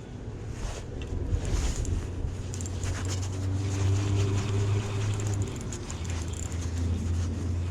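Engine running with a steady low hum that swells for a few seconds and then eases, over wind noise on the microphone.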